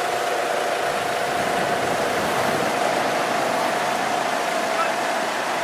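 Steady rush of surf and wind on the beach, with a steady mid-pitched hum running through it that dips slightly in pitch near the end.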